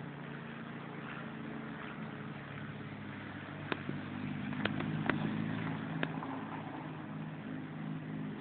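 An engine running steadily, with four sharp clicks in the middle.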